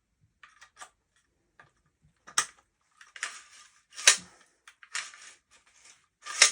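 Parts of a partly disassembled Panser EGX 500 bullpup shotgun being handled: a few sharp clacks and knocks with short scraping sounds between them, the loudest near the end.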